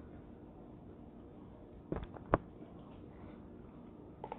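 A few short, faint clicks and one sharp, louder tap a little over two seconds in, over quiet room tone.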